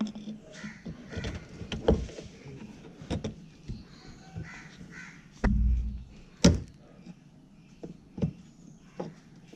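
Plastic push clip under a Ford Figo Aspire's front bumper extension being worked loose with a plastic trim-clip remover: a series of sharp clicks and knocks, with a dull thump about five and a half seconds in as the camera is jolted.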